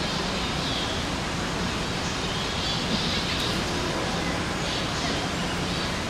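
Steady rushing outdoor background noise, with faint high chirps now and then.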